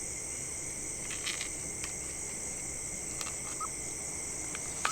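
Night insects, crickets, in a steady high-pitched chorus, with a few faint clicks.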